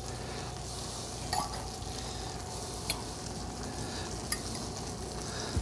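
Sautéed shiitake mushrooms and leeks being lifted from a sauté pan onto a dinner plate by hand: a few faint clicks and taps over a low steady hiss.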